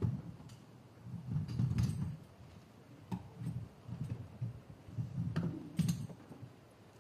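Handling noise from a handheld camera being carried at a walk: a run of low thumps, about two or three a second, with a few sharp clicks.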